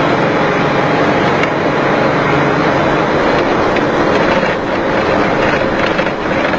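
Bus engine running steadily through a loud aftermarket racing exhaust with a noisy, tinny, rasping note.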